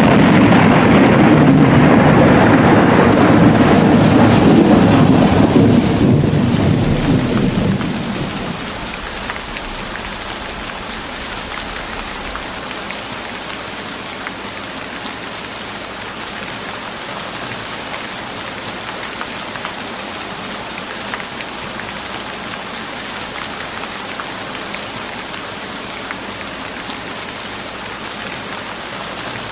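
Steady rain, with a long roll of thunder that fades out about eight seconds in, leaving an even hiss of rain.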